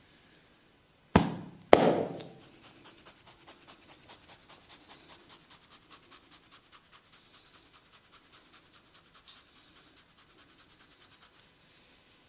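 A barber's hands at work in a massage: two sharp slaps about half a second apart, then a fast, even patter of hand taps, about six a second, running for around nine seconds.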